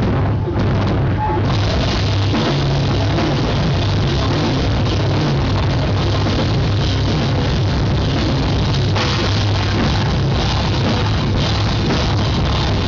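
Live rock band playing loud, heard from right beside the drum kit: pounding drums and a heavy low end, with cymbals dropping out briefly at the start and crashing back in about a second and a half in.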